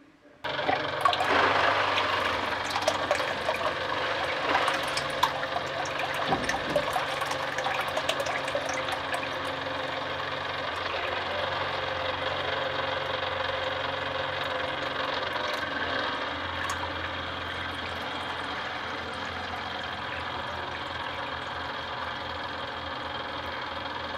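Small DC motor of a homemade plastic-bottle water pump running steadily, its outflow pouring and splashing into a tub of water. The sound starts suddenly about half a second in.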